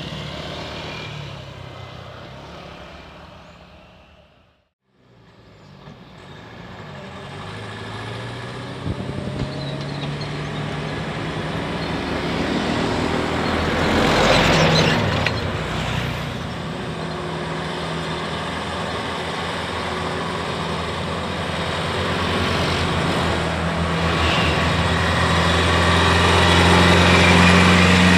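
A passing scooter fades out and the sound cuts off briefly. Then a light diesel cargo truck's engine is heard approaching under load, growing steadily louder until it passes close near the end, with a louder rush of passing traffic about halfway.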